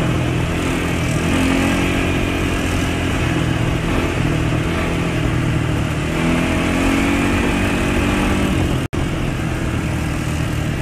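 Off-road vehicle engines running at road cruising speed, with wind and road noise; the engine note rises and falls a little. The sound cuts out for an instant about nine seconds in.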